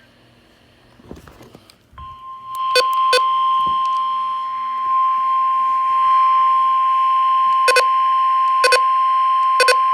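NOAA Weather Radio warning alarm tone: one steady 1050 Hz tone that starts about two seconds in, sent by station WXJ93 as its weekly test of the public warning signal. Short beeps sound over it, two about a second after it starts and three more near the end.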